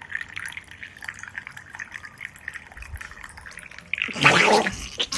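Small wet liquid sounds, irregular drips and splashes, then a loud breathy burst of sound about four seconds in.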